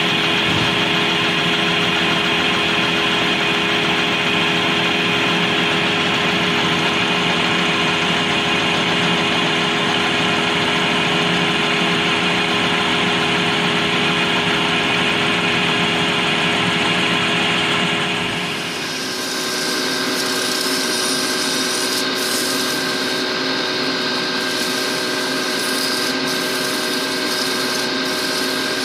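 Lathe running steadily with its cutting tool turning down a grey plastic cylinder, throwing off long stringy shavings. About two-thirds of the way through the sound changes to sandpaper rubbing on the spinning piece, a brighter hiss over the lathe's steady hum.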